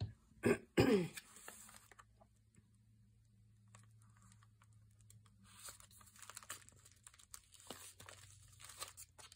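A few sharp knocks in the first second, then paper rustling and crinkling from about halfway through as a glued paper pocket and tag are handled and pressed flat onto a journal page.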